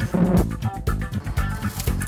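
Instrumental background music with plucked guitar and bass.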